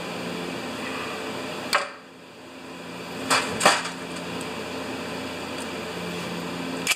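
Carburetor parts and hand tools handled on a workbench: a sharp click a little under two seconds in, then two knocks about a second and a half later, over a steady electric hum that stops suddenly at the end.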